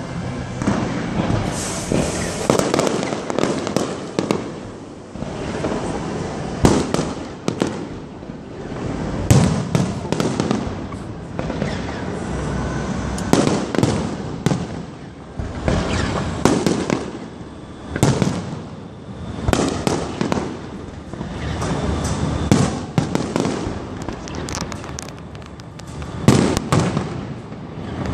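Aerial firework shells bursting in quick succession: a run of sharp bangs every second or two, with crackling and fizzing from the spreading stars in between.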